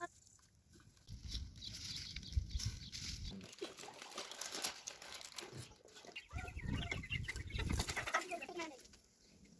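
Chickens clucking in the open, loudest in the second half, with some low rumbling noise earlier on.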